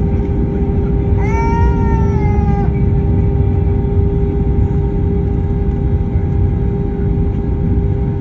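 Airbus A321 cabin noise while taxiing: a steady engine rumble with a steady hum. About a second in, a single high, drawn-out wail lasting about a second and a half, falling slightly at the end.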